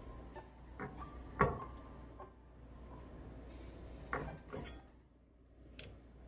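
Kitchen handling noises: a few separate knocks and clatters, the loudest about a second and a half in, over a low steady hum.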